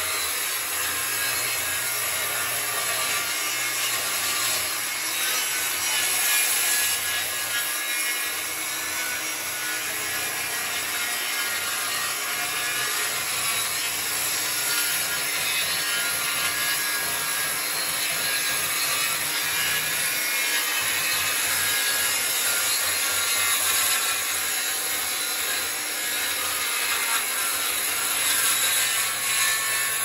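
Corded circular saw ripping lengthwise through a freshly milled softwood slab, cutting steadily under load. It is making 2x4s by a freehand cut along a traced line.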